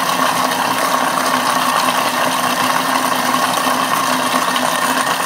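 Bimby TM5 (Thermomix) kitchen machine running steadily at speed 5, its blade mixing eggs into a thick flour-and-butter dough in the bowl.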